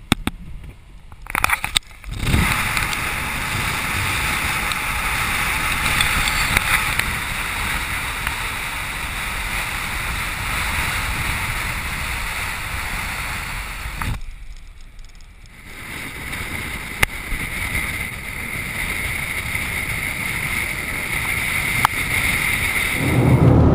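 Wind rush and tyre noise from a car driving fast on a dirt road, picked up by a camera held outside the open window. It begins about two seconds in, drops away briefly about halfway through, then returns.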